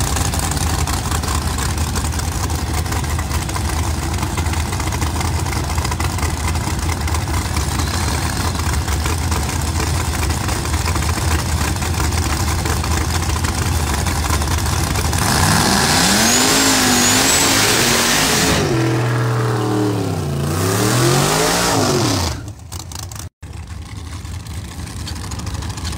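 Drag-racing Fox-body Mustang's engine running with a loud, steady low drone, then revving hard about 15 seconds in, in several sweeps that rise and fall in pitch as it accelerates away. The sound drops off abruptly near the end, and a quieter engine sound builds up again.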